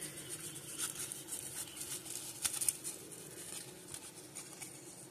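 Baseball cards being thumbed through by hand: faint sliding of card stock against card stock, with a scatter of soft, irregular flicks and clicks as cards are moved across the stack.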